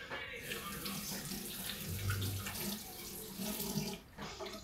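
Kitchen tap running into a sink, water splashing steadily; it starts about half a second in and is shut off about four seconds in.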